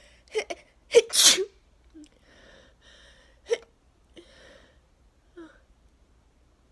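A woman sneezing in a fit set off by freshly cut grass. Short catches come first, then one loud full sneeze about a second in, followed by quieter breaths, a shorter sharp burst around the middle and faint breathing near the end.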